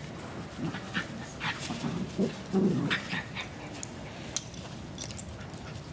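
Two cairn terriers, a puppy and an adult, play-fighting, with a cluster of short yips and growls about two to three seconds in and light clicks scattered around them.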